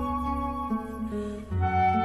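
Instrumental background music: a flute melody over held chords, moving to a new chord with a deeper bass note about a second and a half in.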